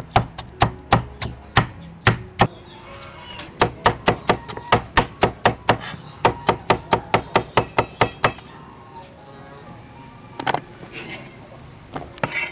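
Cleaver slicing a bamboo shoot into rounds on a wooden chopping board: quick sharp knocks, about four a second, with a short break after about two seconds, stopping about eight seconds in. A couple of softer, noisier sounds follow near the end.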